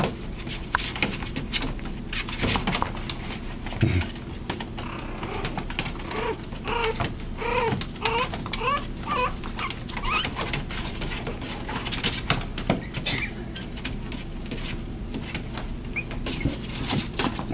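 Teacup Yorkshire Terrier puppies squeaking and whimpering as they play, with a run of short rising squeaks from about six to nine seconds in. Soft rustling and small clicks of paws scrambling on a blanket run underneath.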